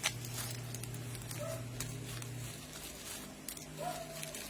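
Light clicks and rustles of small metal BNC barrel connectors and their packaging being handled while they are counted, over a steady low hum. A sharp click comes right at the start.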